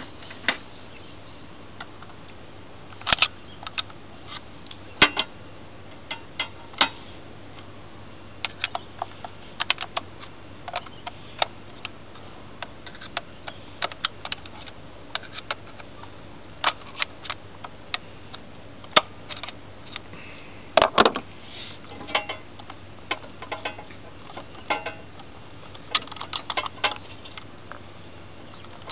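Scattered light clicks, taps and knocks of hand tools and engine parts being handled, at irregular intervals, with a cluster of louder knocks about three-quarters of the way through.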